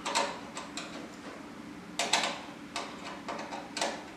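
Screwdriver turning out a screw in the rear of a steel desktop PC case: light metallic clicks and ticks, unevenly spaced, about eight in all.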